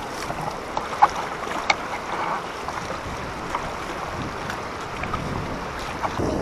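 Floodwater sloshing and splashing steadily around a bicycle being ridden through it, with a couple of sharp splashes or clicks about a second in.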